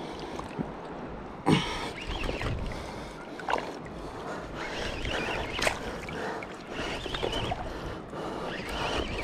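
Shallow seawater sloshing and gurgling around a wading angler's legs during a fight with a big fish, broken by a few sharp knocks, the loudest about one and a half seconds in.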